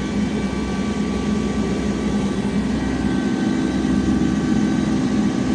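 Tractor engine running steadily at PTO speed, driving a rotary cutter (bush hog), with a steady whine above the engine note.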